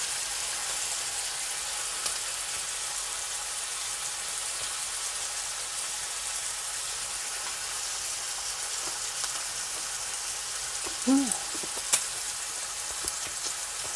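Pork neck and king oyster mushroom slices sizzling steadily on a grill pan, with a sharp click about two seconds in and another near the end.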